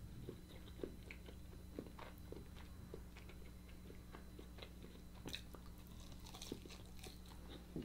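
Faint close-miked eating sounds: soft crunches, chewing and small wet mouth clicks as roasted alligator meat is bitten and chewed, with a steady low hum underneath.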